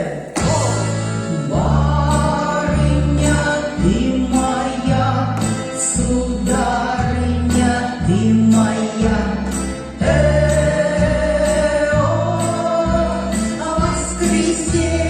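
Recorded dance music with singing and a steady, heavy beat, with a bright jingling percussion on top.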